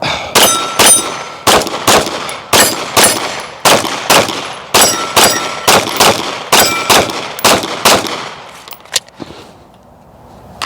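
Rapid string of about sixteen to eighteen pistol shots from a Glock 45 9mm over about eight seconds, with hits on a steel plate ringing between some of the shots.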